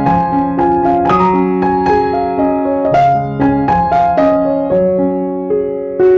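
Background piano music: a gentle melody of struck notes, several a second, over held lower chords.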